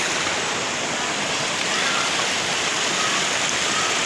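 A shallow, rocky river running over stones: a steady rush of water.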